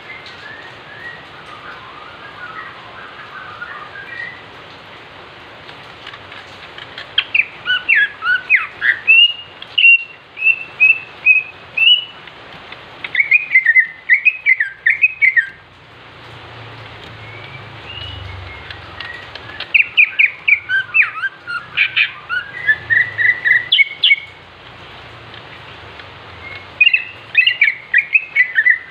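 Male cucak ijo (green leafbird) singing in fired-up bursts of rapid, sharp, varied whistled notes, four loud phrases broken by short pauses, after a few soft notes at the start. This is the kind of aggressive song used as a lure to provoke other cucak ijo. A steady hiss runs underneath.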